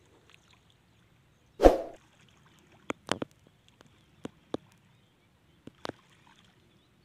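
Scattered small splashes of someone wading through shallow pond water, with one louder thump about one and a half seconds in.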